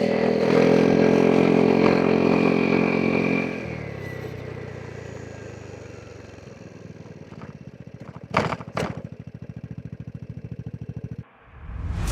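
Vespa GTS 300 scooter's single-cylinder four-stroke engine pulling hard under throttle, then dropping suddenly to a quieter, evenly pulsing run as the throttle closes. Two short loud sounds come near the end, and the sound then cuts out.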